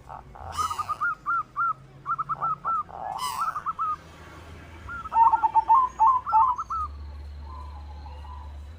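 Zebra dove (perkutut) singing: rapid runs of short, clipped cooing notes, in three bursts with pauses between.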